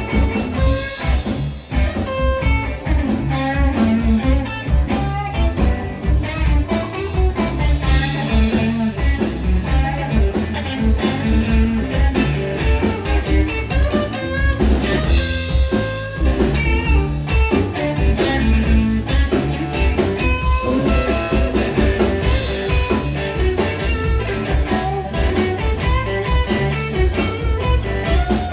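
Live blues band playing an instrumental passage, with guitar leading over a pulsing bass line and drums.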